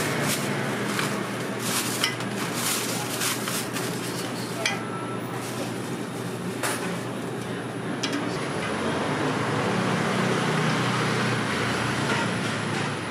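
Quick metal clinks and taps of utensils at a red bean cake street stall over a steady street noise. The clinks die away about five seconds in, and a passing vehicle's engine hum rises near the end.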